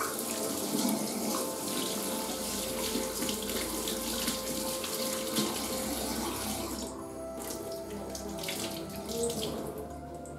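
Kitchen tap running into a stainless steel sink, the stream splashing over an egg being rinsed under it. The flow breaks off briefly about seven seconds in, runs again, and is shut off near the end.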